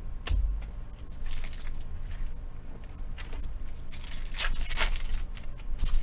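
Foil trading-card pack wrappers being torn open and crinkled, with a few short bursts of ripping, the loudest a little past four seconds in. There is a bump near the start.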